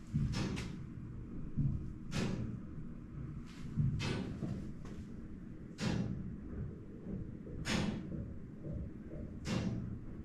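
A series of irregular thumps and knocks, one every second or two, over a steady low rumble.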